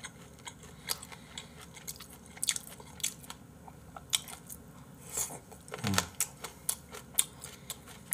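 Close-up chewing of chicken gizzards, firm and crunchy-chewy, with many small crisp clicks and crunches. A short hum from the eater sounds just before six seconds in.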